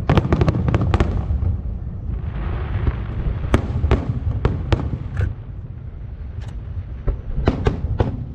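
Aerial fireworks display: a rapid volley of bangs, then a crackling hiss from bursting shells, scattered single reports, and another quick cluster of bangs near the end, over a continuous low rumble.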